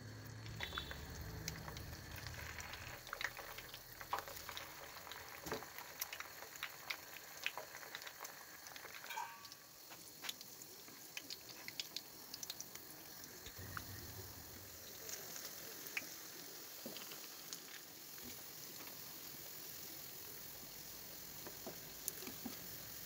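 Leftover-rice vadas deep-frying in hot oil: a steady bubbling sizzle, dotted with frequent sharp pops and crackles.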